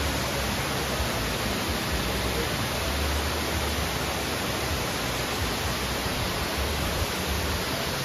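Waterfall cascading down stepped rock ledges: a steady, even rush of falling water.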